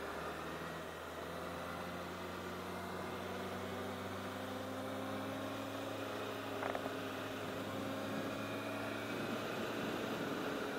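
Honda CBR1000RR Fireblade's inline-four engine running at a light cruise in traffic over steady wind rush. Its note climbs gently as the bike gathers speed, then drops back near the end as the throttle eases. There is a short click about two-thirds of the way in.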